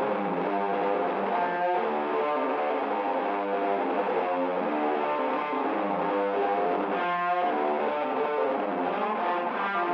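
Intro music: an electric guitar riff with distortion and effects, no drums or bass.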